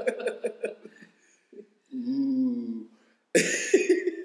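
A man laughing in choppy bursts, then a held hum of about a second in the middle, then a loud burst of laughter near the end.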